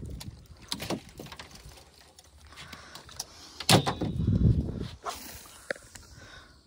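Handling noise in a small wooden fishing boat: scattered clicks and knocks as gear is moved about, with one sharp knock about three and a half seconds in followed by about a second of low rubbing and bumping.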